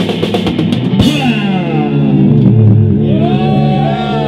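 Rock band with electric guitars, bass and drum kit playing live. Drum hits run up to a last crash about a second in, then the guitars and bass hold a ringing chord with wavering, bending tones.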